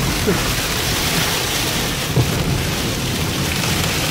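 Sandstorm wind driving sand against a moving car's windscreen and body, heard from inside the cabin as a steady, dense hiss over a low rumble, with one short knock about two seconds in.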